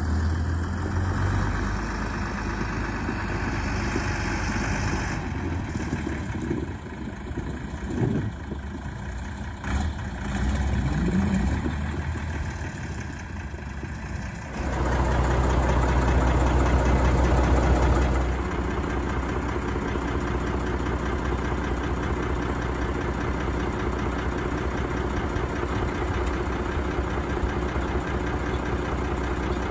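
Same Buffalo 130DT tractor's air-cooled six-cylinder diesel running, with a couple of rising revs in the first half and a louder stretch about halfway through, then idling steadily close by.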